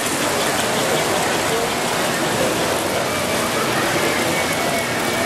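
Steady hubbub of a crowded hall mixed with the rolling clatter of American Flyer S gauge model trains running on the layout's track. A faint steady tone comes in about three seconds in.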